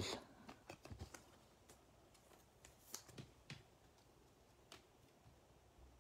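Near silence: room tone with a few faint, scattered clicks and taps of a trading card being handled and set into a plastic card stand.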